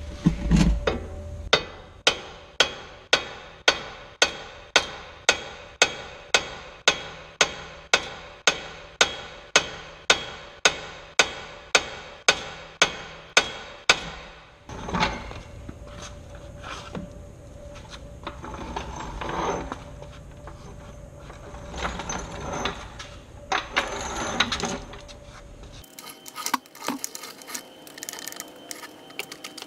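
Hammer blows on a Honda Civic's steering knuckle, about two a second in an even rhythm, to shock the tapered ball joint stud loose. After about fourteen seconds the blows stop, giving way to irregular knocks and scraping.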